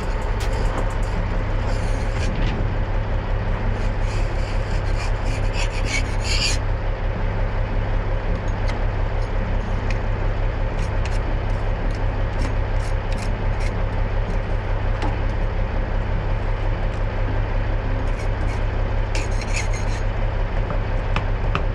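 Diesel engine idling steadily, with intermittent gritty scraping and rubbing as loose dirt and stones are brushed off a dump truck's tailgate by hand.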